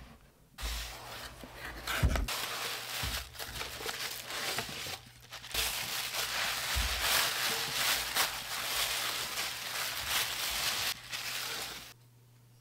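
Cardboard box and tissue paper wrapping being handled, with a continuous crinkling and rustling of paper and a knock about two seconds in. The rustling stops shortly before the end.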